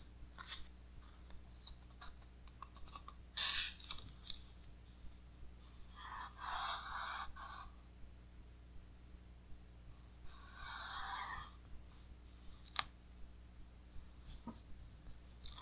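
Pages of a large-format hardcover book being handled and turned by hand: light paper ticks and rustles, then two longer swishes of sliding paper, and a single sharp click a little after the second swish.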